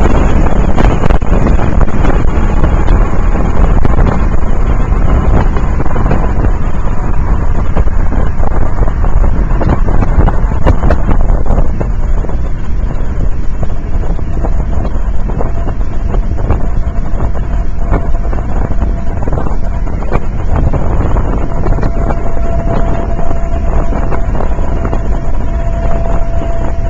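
Loud wind and road noise rushing over the microphone in a 2008 Pontiac Solstice GXP Turbo at high speed. It eases somewhat about twelve seconds in.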